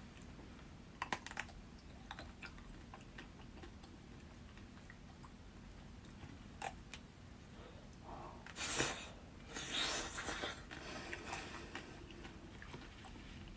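Close-miked eating sounds of ice cream: a few sharp clicks about a second in, scattered small ticks, then two louder bursts of biting and chewing a little past the middle.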